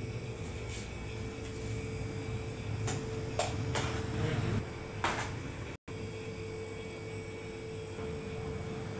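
Steady low hum with a faint constant tone, broken by several light knocks and clicks and a brief dropout a little past halfway.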